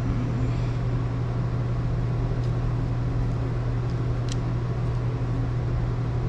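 Steady low machine hum over an even background noise, with a faint click about four seconds in.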